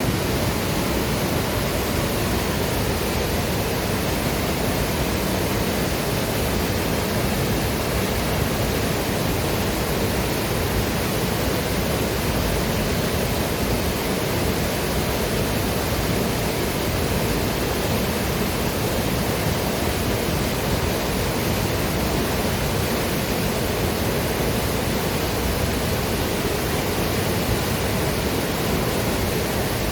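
Waterfall and river water rushing steadily, a dense even roar of falling and flowing water with no changes.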